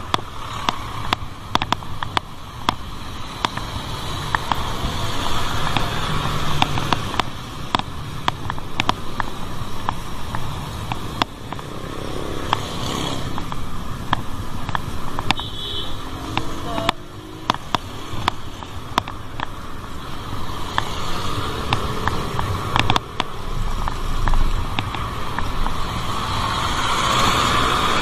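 Road traffic from passing motor vehicles, with wind rushing over a bicycle-mounted microphone and many short clicks and knocks from the ride.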